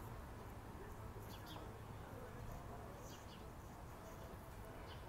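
Small birds chirping outdoors: short, high chirps repeating every second or two over a faint, steady low rumble.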